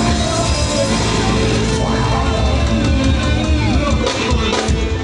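Loud amplified band music, rock in style, played over a sound system.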